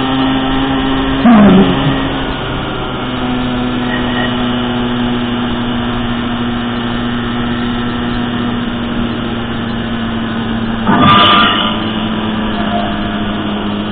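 Motorbike engine running steadily at cruising speed, heard from on the moving bike. A short loud sound cuts in briefly about a second in and again about eleven seconds in.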